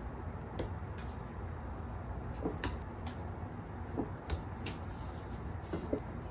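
Scattered light clicks and taps, about five of them, as a metal over-door hook rack is handled and round adhesive pads are pressed onto its bracket.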